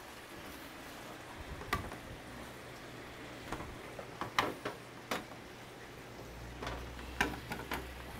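Scattered light clicks and taps of a pizza cutter and fingers on an aluminium sheet pan while wonton wrappers are cut up, about eight in all with no regular rhythm.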